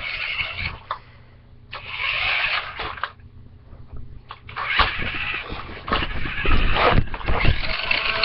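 Toy remote-control stunt car's small electric motors whirring in bursts as it is driven, stopping briefly twice, with knocks as it flips and spins on carpet.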